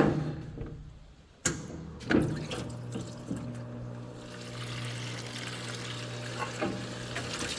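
Parts washer switched on with a click about a second and a half in, its pump motor then humming steadily while degreaser runs from the nozzle and splashes into the tub.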